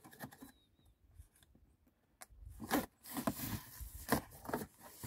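Cardboard box being opened by hand: scraping and tearing of cardboard, with soft scrapes at first and then a run of sharper rips and scrapes from about two seconds in.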